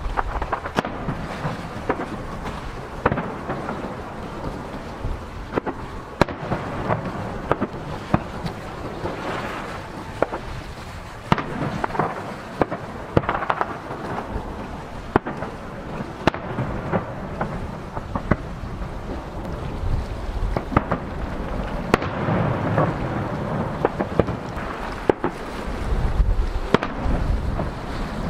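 Aerial firework shells bursting one after another: sharp bangs at irregular intervals of about one to two seconds, with a rolling rumble and crackle between them.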